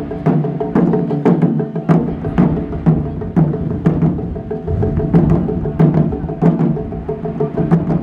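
Japanese taiko drums beaten in a steady rhythm, about two strokes a second, each stroke sharp with a deep boom.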